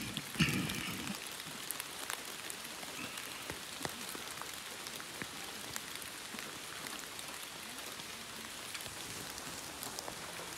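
Steady rain falling, with many scattered drop ticks, and a brief vocal sound about half a second in.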